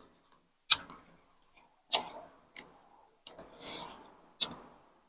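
Forks and spoons clicking against a serving tray and bowl as noodles are eaten: short sharp clicks, roughly one a second, with a brief hiss about three and a half seconds in.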